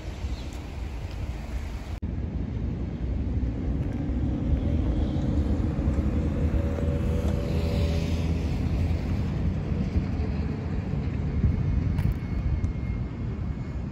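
Traffic on a seaside road: a vehicle passes with an engine hum that swells in the middle and fades, over a steady low rumble.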